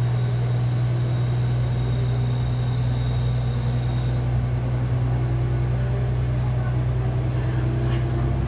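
KiHa 11 diesel railcar's engine running with a steady low drone as the train moves along the line. Fainter tones above it climb slowly in the second half, and a faint high whine fades out about halfway through.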